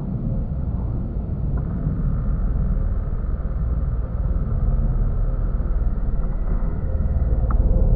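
Steady low outdoor rumble, with a faint thin high tone through the middle and a short click near the end.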